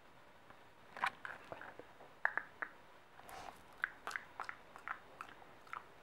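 American cocker spaniel chewing food noisily: a run of quick, irregular clicks and crunches that starts about a second in.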